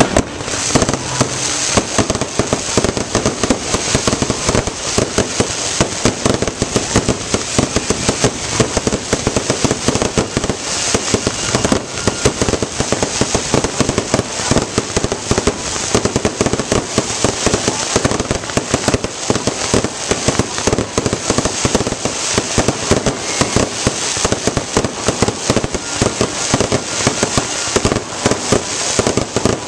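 Fireworks going off in a dense, unbroken run of rapid cracks and bangs.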